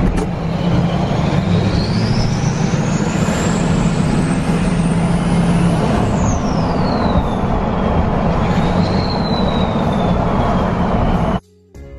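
LBZ Duramax 6.6-litre V8 turbodiesel with a 68 mm street turbo, heard inside the cab while driving: the turbo whistle climbs steadily in pitch for about five seconds as it spools up, then falls away, rises briefly again and fades, over the engine's drone and road noise. It cuts off near the end, replaced by music.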